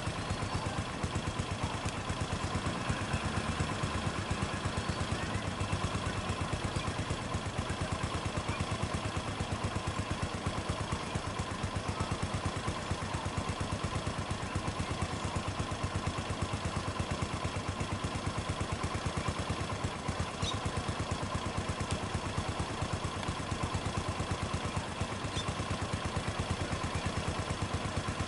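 A vehicle engine idling steadily, with an even, fast pulse that does not change.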